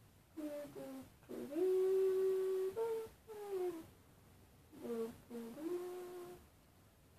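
A boy humming a tune to himself, with long held notes that slide up and down, in two phrases with a short break about four seconds in.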